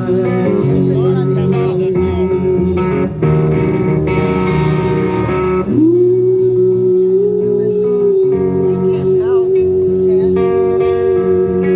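Live hard rock band playing, with a guitar holding long, wavering notes that bend upward about halfway through, over bass and drums.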